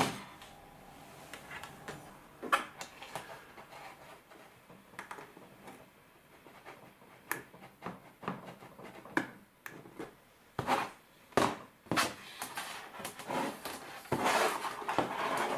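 Handling noise of desk equipment: scattered light clicks and knocks as cables are plugged in and a computer mouse is set down on the desk, with a longer rustle near the end.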